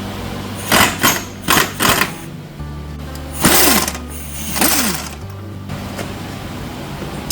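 Background music over several short bursts of a rattling power tool, most likely a pneumatic impact wrench, each lasting a fraction of a second, two of them trailing off in a falling whine as the tool winds down.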